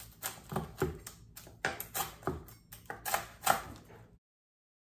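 Kitchen knife chopping strips of cooked bacon on a wooden cutting board: a run of uneven taps, two or three a second, until the sound cuts off to silence about four seconds in.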